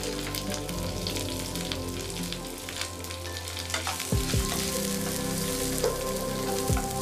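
Chopped onion sizzling as it goes into hot oil in a nonstick pan, then a spatula stirring it, with a few sharp knocks and scrapes from about four seconds in.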